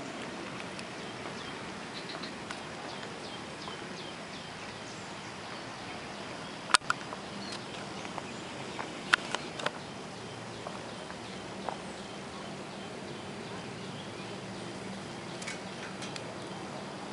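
Pebbles knocking together in a few sharp clicks: the loudest about seven seconds in, a cluster of three around nine seconds, and a lighter one near the end. Faint high chirps repeat in the steady outdoor background.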